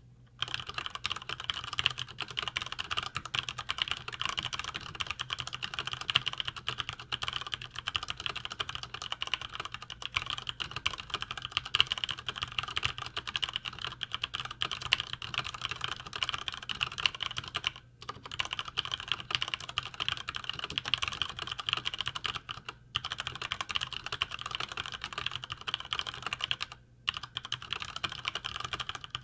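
Fast, continuous typing on a Cherry MX Board 5.0 mechanical keyboard with linear Cherry MX Red switches: a dense patter of keystrokes, broken by three brief pauses in the second half.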